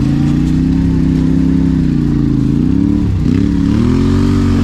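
Adventure motorcycle's parallel-twin engine running steadily under light throttle. About three seconds in the revs dip briefly, then climb and hold at a higher note.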